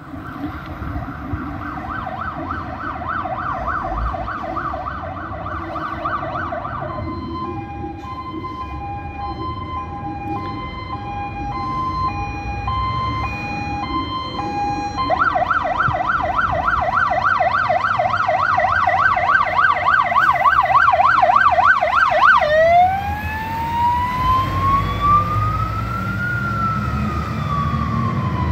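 Fire tanker truck's siren on an emergency run, cycling through its modes: a fast warbling yelp, then a two-tone hi-lo, the fast yelp again, and from about two-thirds in a slow wail that rises and then falls. The truck's diesel engine rumble grows under the siren near the end as it passes.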